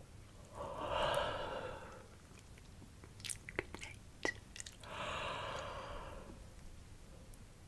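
Close-miked ASMR yawning: two long breathy exhales about four seconds apart, with a few wet mouth clicks in between.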